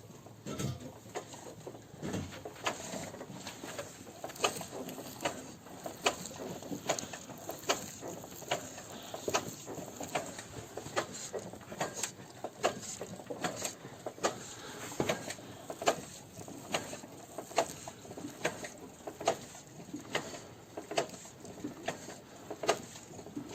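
Repeated sharp clicks and knocks, roughly two a second, from a VW Passat B3's front suspension and running gear as the car is rocked back and forth in gear, heard from underneath.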